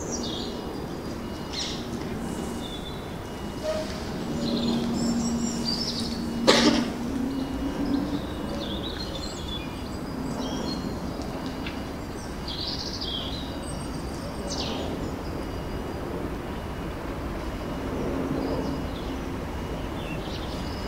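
Small birds chirping over the low rumble of an approaching Class 37 diesel locomotive, with a sharp crack about six and a half seconds in.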